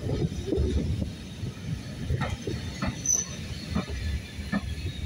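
Railway carriages rolling slowly past, their wheels rumbling on the track with a few irregular clicks, and a brief high wheel squeal about three seconds in. Wind buffets the microphone.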